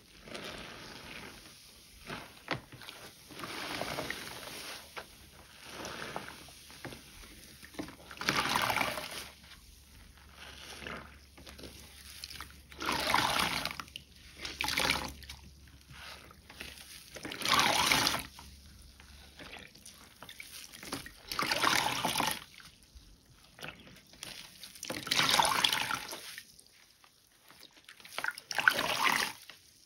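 Soaked, mushy bar soap being worked and lathered with water into thick foam: wet liquid sounds that swell and fade in repeated waves a few seconds apart.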